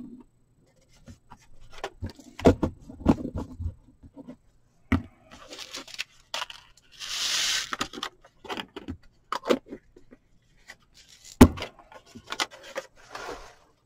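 Small plastic jars and lids clicking and knocking on a table as they are handled and stacked. Around the middle, loose craft sprinkles slide off a folded paper into a jar with a brief rustling hiss.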